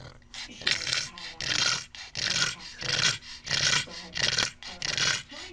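A dog's noisy, rasping breaths, repeated evenly about every two-thirds of a second.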